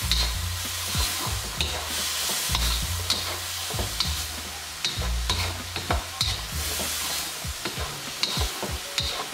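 Chicken with shallots, garlic and chilies sizzling in a wok in fish sauce, soy sauce and sugar, while a spatula stirs it, scraping and clicking against the wok about once or twice a second.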